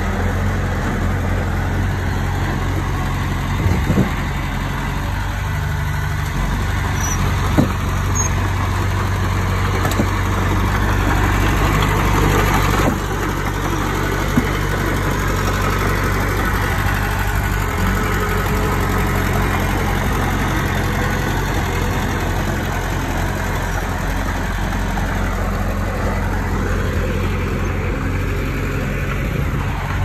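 Heavy diesel engine of earthmoving machinery running steadily, with a few sharp knocks; it works harder for a few seconds near the middle, then eases off suddenly.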